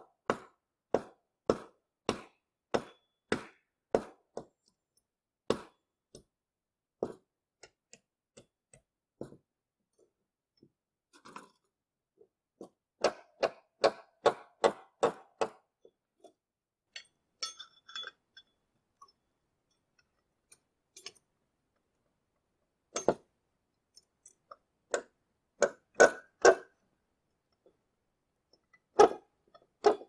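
Hammer blows on wooden boards, a quick run of about two knocks a second at first, then scattered knocks with a short flurry about halfway through.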